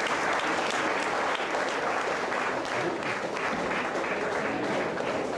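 An audience clapping, a steady round of applause.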